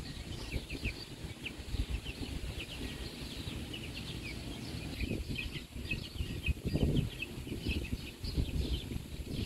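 A flock of Cornish cross meat chicks peeping continuously, many short high peeps overlapping several times a second. A low rumbling noise runs underneath and swells briefly about seven seconds in.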